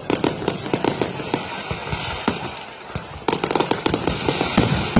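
New Year fireworks going off in rapid strings of sharp crackling bangs. There is a dense run at the start, a short lull, then another dense volley from just past the three-second mark.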